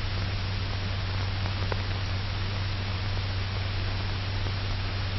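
Steady hiss with a low, constant hum from an old 1940s optical film soundtrack, with no other clear sound.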